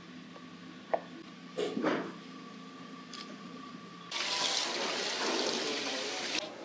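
Tap water running hard into a stainless steel sink as a raw eel is rinsed under the stream, starting about four seconds in and stopping just before the end. Before it, a faint steady hum with a few short knocks from handling the eel on a wooden board.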